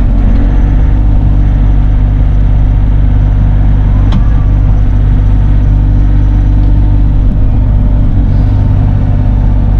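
Bobcat E42 mini excavator's diesel engine running steadily, heard from inside the cab while the boom and bucket work. There is a single sharp click about four seconds in.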